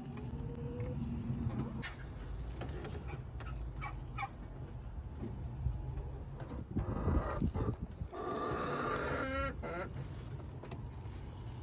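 Hens sitting on the nest calling as eggs are taken from under them: a short call near the start and a longer squawk about eight seconds in, with straw rustling and handling noise in between.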